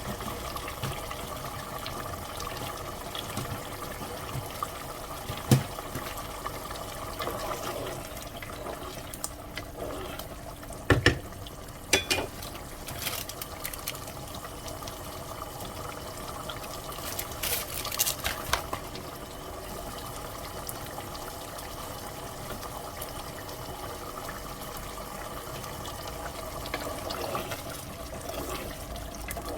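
Steady liquid sound from the cooking, broken by a few sharp knocks, one about five seconds in and a cluster around eleven to eighteen seconds.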